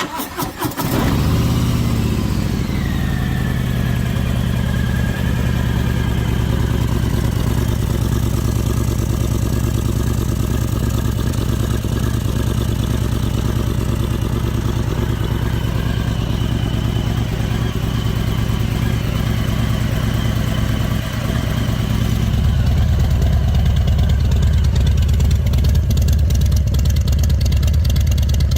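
Harley-Davidson Fat Boy's V-twin engine starting up, its revs falling over the first couple of seconds and settling into a steady idle. About 22 seconds in the low rumble becomes stronger.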